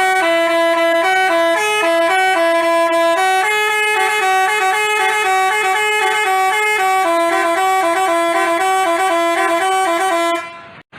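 Telolet basuri bus horn playing a tune: a stepping melody of two-voice horn tones that cuts off near the end.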